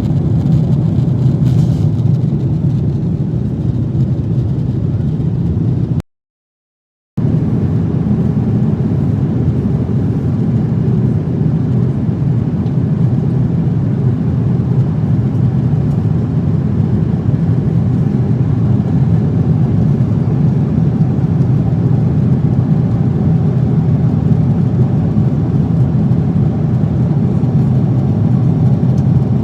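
Steady low roar of an airliner cabin in flight, the engine and airflow noise heard from inside the cabin. The sound cuts out for about a second some six seconds in.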